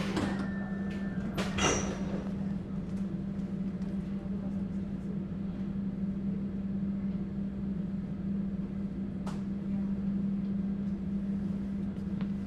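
AEG/MAN/Siemens DT1 three-phase-drive U-Bahn train standing still, its onboard equipment giving a steady low hum. Two short, loud noisy bursts come in the first two seconds.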